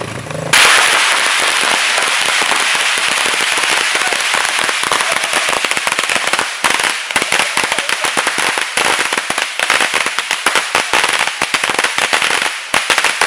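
A long string of firecrackers going off in a rapid, continuous crackle of bangs, starting suddenly about half a second in. The pops grow more separated toward the end. A motorcycle engine is heard briefly at the very start.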